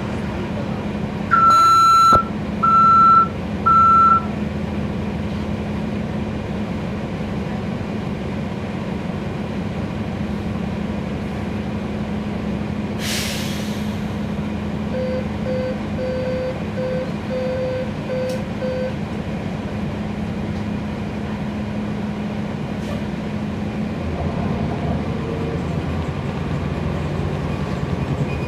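Cabin sound of a NABI 40-SFW transit bus with its Cummins ISL9 diesel engine running steadily. About a second in come three loud electronic beeps. A short hiss of air follows near the middle, then a run of quieter short beeps, and near the end the engine note rises.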